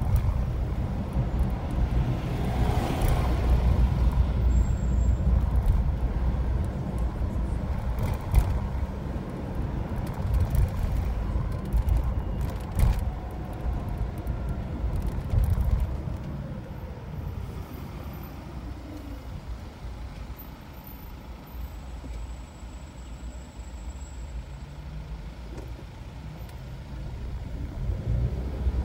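Inside a car in slow traffic: the low, steady rumble of engine and tyre noise, louder in the first half and easing off after about 16 seconds. A few sharp clicks come near the middle.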